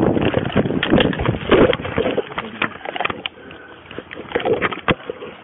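Handling noise from a body-worn police camera: its microphone rubs and knocks against the officer's uniform and rifle gear as he moves, giving irregular thumps and rustling that ease off for a moment a little past the middle.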